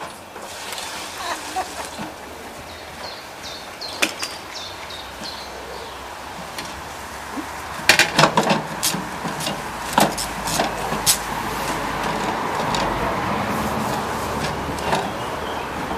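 Knocks and clatter from metal parts being handled, with a few short squeaks, then a steady rushing noise that builds from about halfway through.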